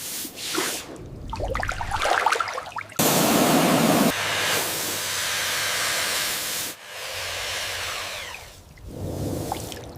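A run of short, abruptly cut clips of steady hissing noise, like spraying, with an uneven scratchy stretch between about one and three seconds in.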